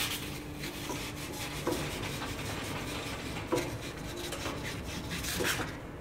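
Deburring tool of a small pipe cutter scraping the cut end of a copper pipe, worked back and forth in short repeated strokes to clean the burr off the edges.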